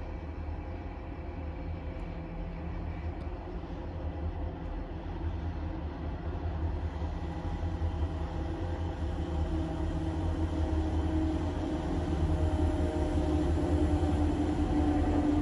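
A train approaching, its low rumble and steady hum growing gradually louder.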